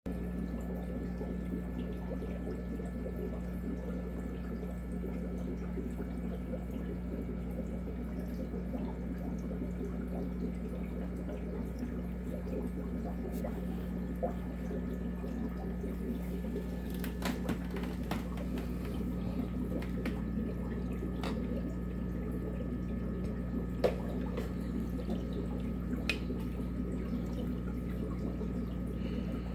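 Aquarium aeration running: water bubbling and dripping over a steady low hum of the tank's equipment, with a few sharp clicks.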